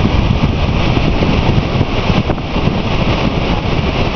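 Lower Falls of the Yellowstone River rushing: a loud, steady noise of falling water, with wind buffeting the microphone.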